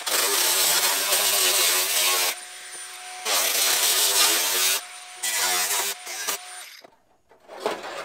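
Electric angle grinder with a cut-off wheel slicing through the rusted sheet steel of a Model A trunk lid in three long cuts, the motor whining steadily in the short pauses between them. It winds down near the end, and a few knocks follow.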